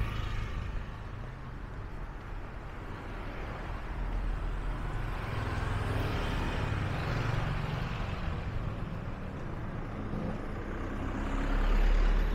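Road traffic: a steady rumble of vehicles going by, swelling as they pass, with the loudest one passing close near the end.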